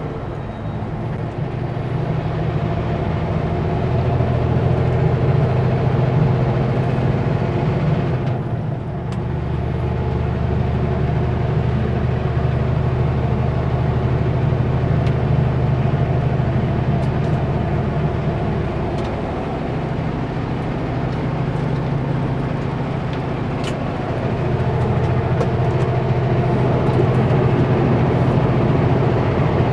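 Kenworth W900L semi truck's diesel engine running steadily. Its sound briefly dips about eight seconds in, then comes back with a deeper low note.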